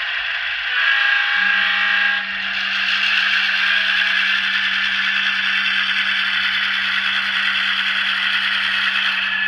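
Model railroad diesel locomotive running slowly with a steady running noise. About a second in, a horn-like chord sounds for just over a second, and a steady low hum follows from then on.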